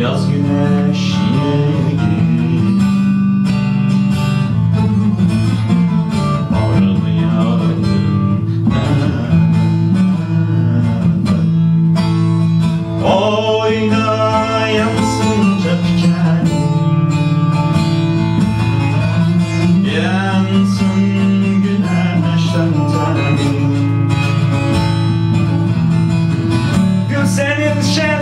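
Bağlama (saz), a long-necked Turkish lute, strummed rapidly over a steady ringing drone of its open strings, with a man singing over it at times: about 13 seconds in, again near 20 seconds and near the end.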